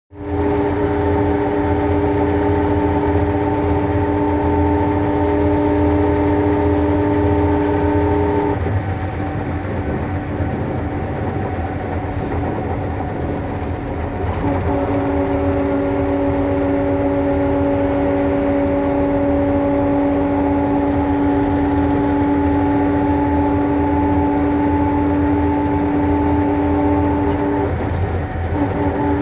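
Sleeper bus cabin at highway speed, about 90 on the speedometer: a steady low rumble of engine and road, with a steady whine of several tones over it. The whine cuts out about eight seconds in and comes back about six seconds later.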